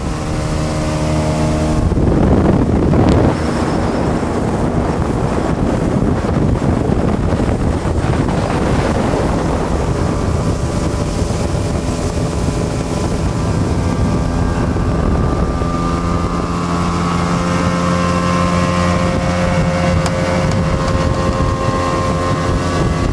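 A 200 hp Johnson two-stroke V6 outboard running steadily with the boat under way at speed. About two seconds in, a heavy rush of wind and water noise swells up and largely covers the engine's tone, which stands out again near the end.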